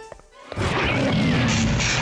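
Cartoon soundtrack: a few faint clicks, then about half a second in a sudden loud crash-like sound effect with a deep rumble breaks in and carries on over music.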